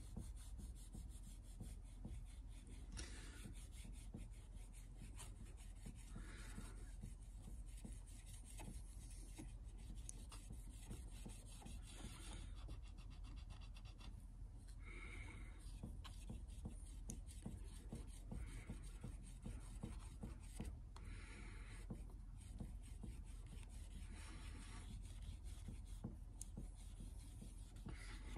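Solvent-dampened cotton swab scrubbing old varnish off a fine wood veneer: a faint scratchy rubbing that comes in short spells of a second or two every few seconds, over a low steady hum.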